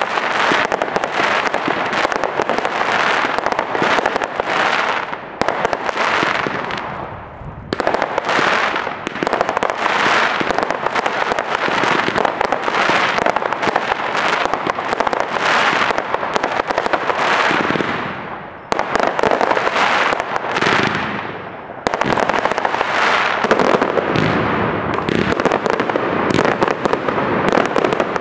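Aerial fireworks going off in a dense barrage of bangs and crackling, shot after shot. The barrage dies down briefly three times and starts again abruptly each time.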